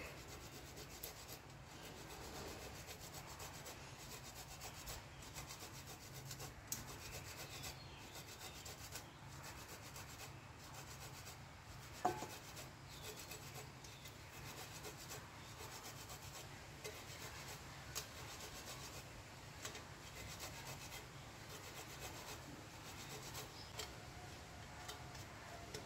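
Sausage rubbed against a stainless steel grater: faint, repeated scraping strokes, with a light knock about halfway through.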